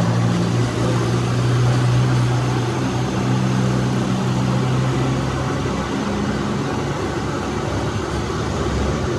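A machine running with a steady low hum over a constant hiss; the hum weakens about six seconds in.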